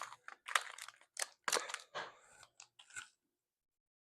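Slime being worked with add-in beads: a run of irregular crunchy crackles and clicks for about three seconds, then one more click near the end.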